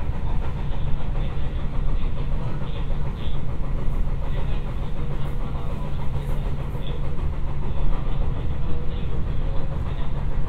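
Running sound of a JR West 221 series electric train heard from inside the car: a steady low rumble of wheels on rails and running gear, with a faint hum and a few light ticks.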